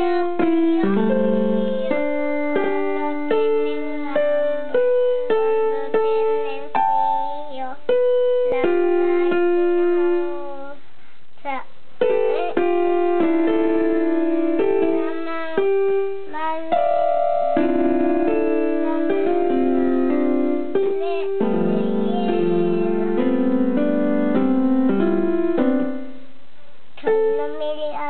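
Electronic keyboard played by a toddler pressing the keys with both hands: clusters of held notes and chords that start and stop unevenly, with no tune or beat.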